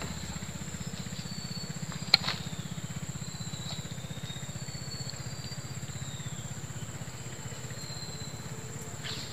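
A small motor running steadily as a low, fast-pulsing drone, with short high chirps over it and one sharp click about two seconds in.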